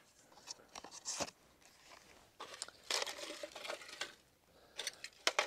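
Faint, irregular rustling and crinkling with small clicks as trash and dry debris are picked out of a rock fire ring by hand.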